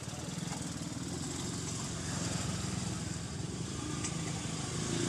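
A small engine running steadily, a low pulsing drone that grows a little louder about two seconds in.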